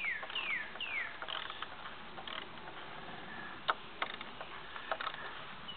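A run of quick falling bird chirps in the first second, then scattered sharp metallic clicks and taps of hand tools bolting up a wooden frame.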